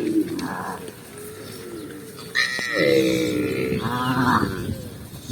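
Cattle calling: a loud, drawn-out, bleat-like call about two and a half seconds in, followed by a shorter call.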